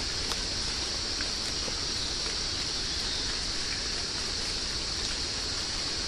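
Rainforest ambience: a steady high-pitched insect chorus held without a break over an even background hiss, with a few faint ticks.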